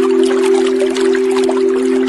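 Meditation-style background music: a steady drone of a few low sustained tones, layered over a continuous sound of trickling, pouring water.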